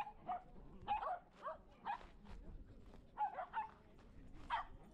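A dog barking: about ten short, high barks, some in quick runs of two or three.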